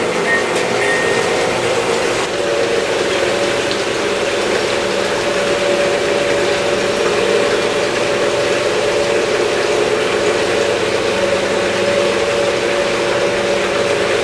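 G scale model diesel locomotive running steadily along the track with its freight cars: a continuous mechanical engine-like drone with steady tones, over the rolling noise of the train.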